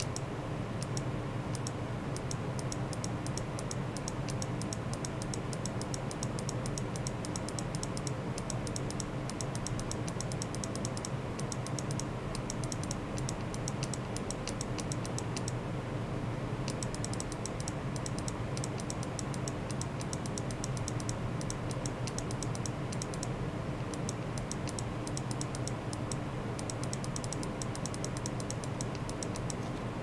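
Rapid clicking of computer keyboard typing, with brief pauses, over a steady electrical hum.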